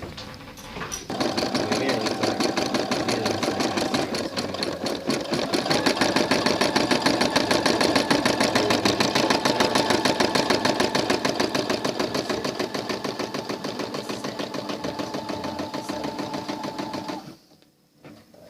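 Sewing machine running fast stitches over a jacket repair, starting about a second in, speeding up a few seconds later and stopping abruptly near the end.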